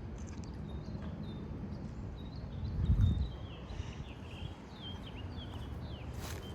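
Wind rumbling on the microphone, with one stronger gust buffeting it about three seconds in, while small birds keep up many short chirps. A brief hiss comes near the end.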